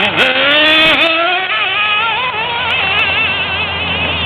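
Traxxas S-Maxx nitro RC truck's small two-stroke glow engine revving hard as the truck pulls away, a high buzz whose pitch climbs steeply near the start and then wavers up and down with the throttle.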